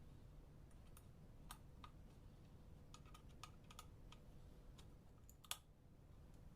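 Faint, irregular light clicks and taps from a coffee grinder's parts being handled, with one sharper click about five and a half seconds in.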